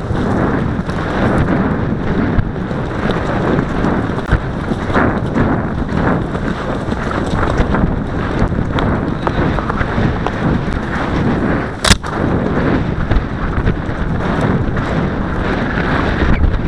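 Heavy wind rumble and buffeting on a helmet camera's microphone while riding at a gallop, full of low thuds, with one sharp click about twelve seconds in.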